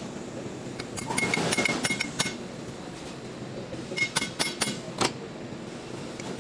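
Metal tools and parts clinking against each other in two quick flurries, about a second in and again about four seconds in, some strikes leaving a short high ring.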